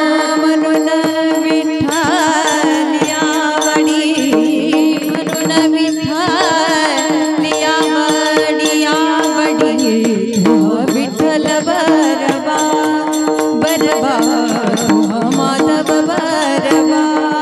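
Indian devotional singing: a voice drawing out long, ornamented melodic runs without clear words, over a steady held drone and a busy drum accompaniment.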